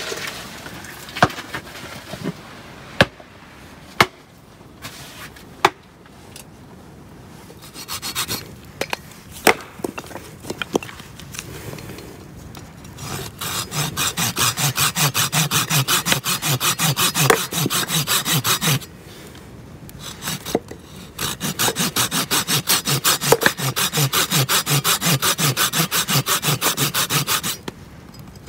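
A few sharp knocks, then a folding hand saw cutting into a split firewood log with fast, even back-and-forth strokes, about five a second. The sawing comes in two long runs with a short pause between them.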